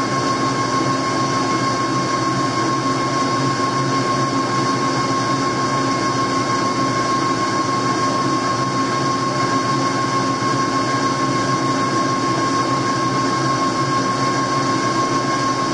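Metal lathe running steadily under power feed while a two-wheel knurling tool rolls a diamond knurl into the turning shaft: a steady mechanical hum with a high, steady whine over it.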